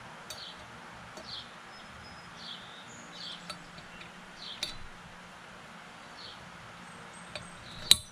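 Faint scrapes and small clicks of a hand punch worked against a lawn tractor pulley's hub to mark a hole for drilling, then one sharp metallic click near the end.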